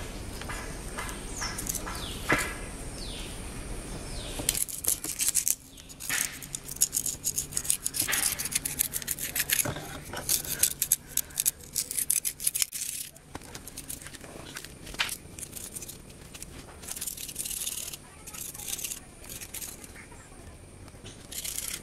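Moss being scraped and torn up from damp ground with a flat scrap of cardboard and by hand: rough scratching and rustling strokes, busiest from a few seconds in to about the middle, with a shorter run later on.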